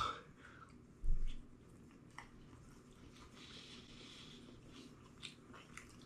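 Quiet mouth sounds of a person chewing a bite of chicken wing: a few small wet clicks. A soft low thump comes about a second in.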